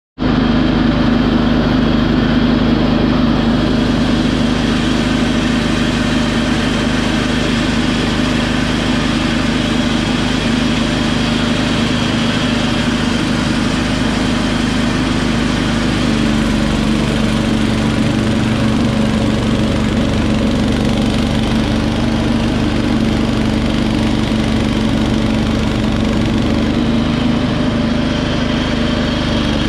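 Wheel Horse 310-8 garden tractor's engine running steadily, driving its front-mounted snowblower. The engine note drops slightly in pitch about halfway through as the blower takes on load in heavy, sand-like snow.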